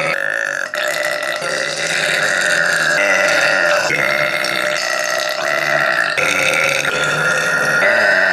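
A person belching loudly and without a break, one long belch running straight into the next, kept going by quickly swallowed air.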